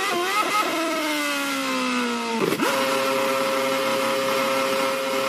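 Onboard sound of a Ferrari F1 car's 2.4-litre V8 engine, its pitch falling steadily as the car slows, with a few quick rises about half a second in. About two and a half seconds in comes a short crash as the car hits the tyre wall, after which the engine holds one steady high note.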